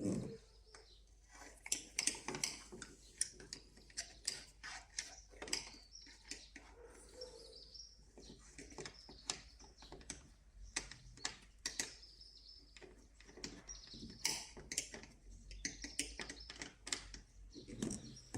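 Irregular clicks and light knocks of hand work on a car door's exterior handle: a screw being taken out and the plastic locking piece and handle being worked loose.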